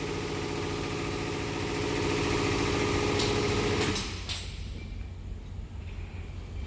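An engine idling steadily, which stops abruptly about four seconds in, leaving a quieter low steady hum.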